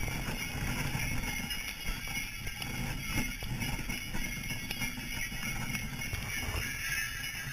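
Sleigh bells on a horse-drawn sleigh's harness jingling continuously as the team trots through snow, over a steady low rumble.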